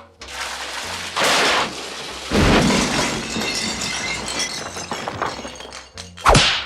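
A loud crash of smashing and shattering, then a second, bigger crash with breaking debris clattering on for a few seconds, and another sharp crash near the end. Background music runs underneath.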